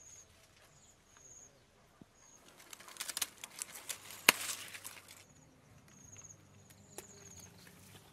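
Rustling of leaves and vines as a squash is handled and pulled from a trellis, with a sharp snap about four seconds in and another small click near the end. Short high chirps repeat faintly throughout.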